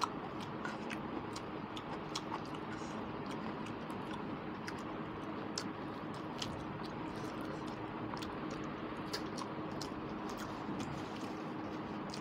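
Close-up eating sounds: chewing and fingers mixing rice and curry on a plate, heard as scattered soft clicks and smacks over a steady background hiss with a faint hum.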